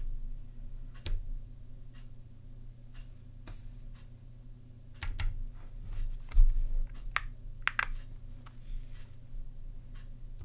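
Typing on a Zilpzalp ergonomic keyboard with Kaihua (Kailh) Twilight low-profile switches: slow, uneven key clicks with short pauses between them, a few keystrokes coming close together, over a steady low hum.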